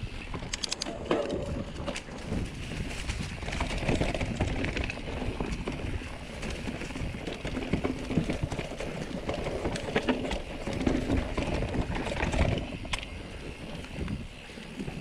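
Canyon mountain bike ridden along a forest singletrack: tyres running over dirt and dry leaves, with frequent clicks and knocks as the bike rattles over rocks and roots, and wind rumbling on the microphone.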